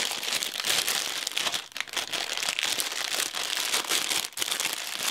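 Clear plastic bag crinkling as it is handled and opened, a continuous crackle with many small sharp crackles.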